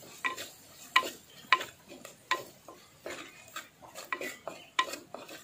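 A wooden spatula stirring spices in oil inside a clay pot, scraping and knocking against the pot's sides in irregular short knocks about once or twice a second.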